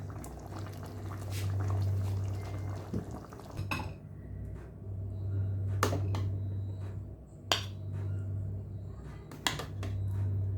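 Metal cooking utensil knocking and clinking against a cooking pot, a handful of sharp knocks a second or two apart, over a low hum.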